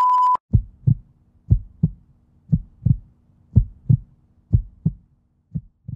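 Heartbeat sound effect: a low double thump about once a second, six beats, over a faint steady hum. It follows a steady test-card beep that cuts off right at the start.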